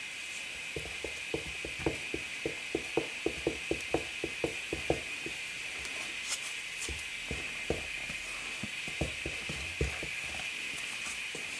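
Wooden spatula knocking and scraping against a stainless steel bowl while stirring flour into a soft yeast dough. It starts as a quick run of short taps, about three a second, that thins out to scattered knocks after about five seconds, over a steady faint hiss.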